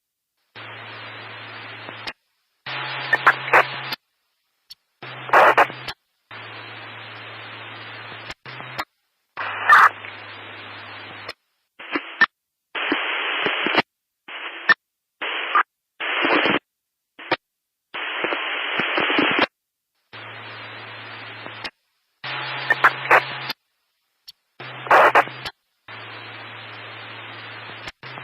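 Static noise: stretches of hiss, each lasting from half a second to a couple of seconds, cutting on and off abruptly with brief silences between. Some stretches are louder with crackle, and others carry a low hum underneath.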